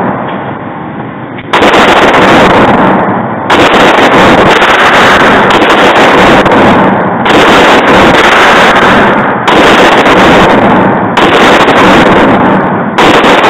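Springfield XD-9 9mm pistol fired at a slow, steady pace in an indoor range: about six shots roughly two seconds apart. Each shot overloads the microphone into a distorted blast that rings on until the next one.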